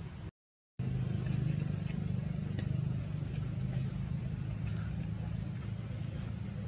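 A steady low mechanical hum, like a motor running, broken by a brief drop to silence just after the start.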